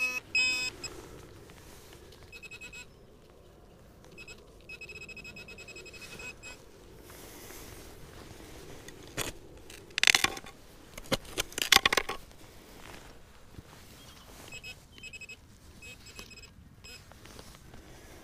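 Minelab Equinox 800 metal detector sounding bursts of repeated electronic beeps as the coil passes over a target. A few loud scraping crunches come about ten and twelve seconds in.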